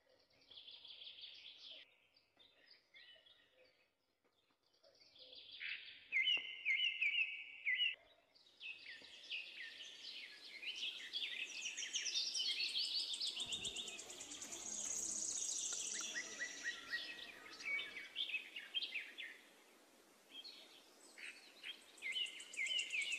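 Several songbirds chirping and singing in short repeated phrases, sparse at first, then many overlapping calls and a high trill in the middle, busy again near the end.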